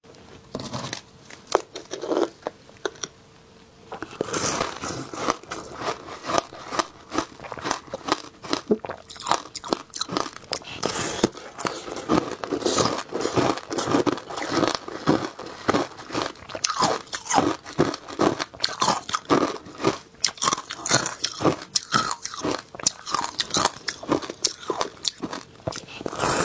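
Biting and chewing packed shaved ice topped with passion fruit pulp: a rapid run of crisp, wet crunches close to the microphone, with only a few scattered crunches before it gets going about four seconds in.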